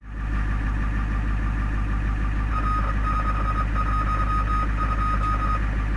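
Ambulance engine idling with a steady low hum. From about halfway through, a string of short electronic beeps at one steady pitch sounds for about three seconds.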